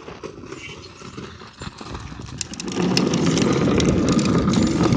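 A small engine running, which gets much louder a little past halfway through.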